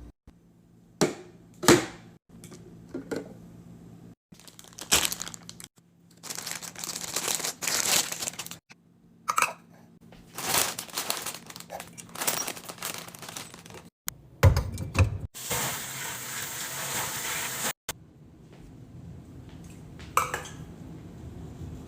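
Plastic packaging crinkling and tearing, mixed with sharp clicks and knocks of containers being handled and set down. About two-thirds of the way through comes a steady hiss lasting about two seconds.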